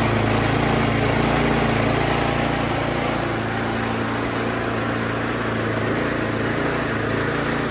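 Snowblower's gasoline engine running steadily at raised throttle, just started after its clogged carburetor jet was cleaned out.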